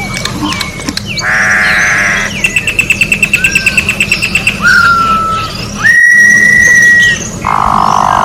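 Campo troupial (corrupião) singing a varied song: short falling notes, harsh nasal notes, a fast trill of about ten notes a second, clear whistles and one long held whistle.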